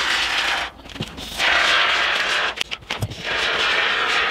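Aerosol can of expanding spray foam hissing as foam is sprayed into the gap between window frame and wall, in three bursts with short breaks.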